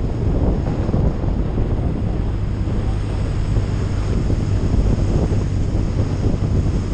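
Wind rushing over a camera microphone on a moving touring motorcycle, over the steady low drone of its engine at cruising speed.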